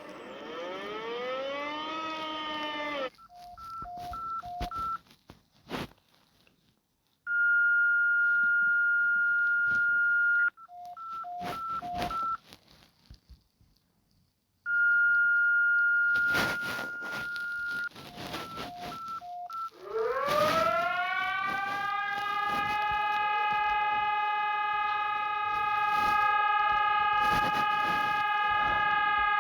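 A sequence of emergency alert sounds: a siren winding down at the start, then short beeps alternating between a high and a low pitch with two long steady tones of about three seconds between them. About two-thirds of the way in, a siren winds up and holds a steady wail.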